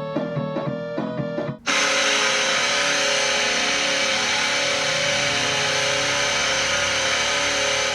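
An NHL arena goal horn sounds one long steady blast, several tones at once over a dense wash of noise. It starts about a second and a half in and begins to die away at the end. Before it, a short stretch of rhythmic pitched music plays.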